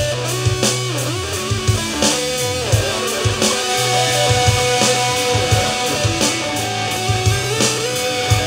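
Instrumental rock jam: electric guitar playing bending, sliding lines over held low bass notes and a drum kit beat.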